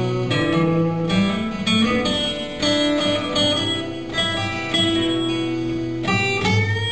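Two acoustic guitars playing an instrumental passage together: a string of plucked melody notes over a moving bass line.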